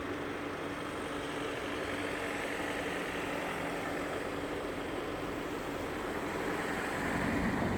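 Motor vehicle engine running steadily, with a low hum that grows a little louder near the end.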